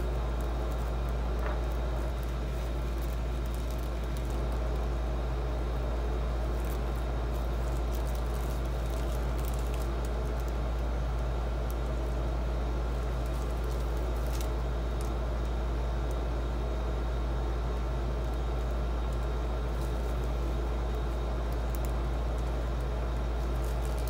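A steady low background hum, with faint crinkling and squishing as clear plastic wrap is laid over wet acrylic paint and pressed down by hand.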